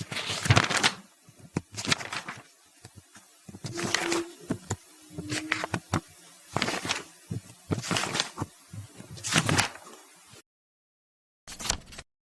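Pages of a book being turned one after another, a dry paper rustle about every one and a half seconds. The sound cuts off abruptly, then one brief page flip follows near the end.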